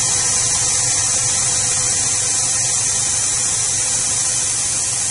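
OCA bubble remover machine running just after being started, its built-in pump or compressor giving a steady motor hum with a strong high hiss of air as the chamber builds pressure to push bubbles out from under the laminated screen.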